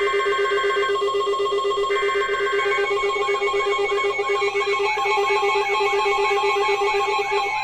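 Emergency alert signals from weather-radio and broadcast receivers overlapping: a steady high warning tone with a lower steady tone under it, short screeching bursts of digital alert data near the start and about two seconds in, and from about three seconds in a further steady tone and a repeating warble about twice a second, ahead of a tornado warning.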